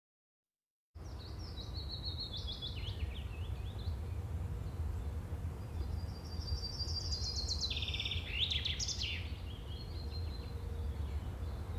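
Wild birds singing, chirps and quick trills in two spells, about a second in and again from about six to nine seconds in, over a steady low background rumble. The first second is silent.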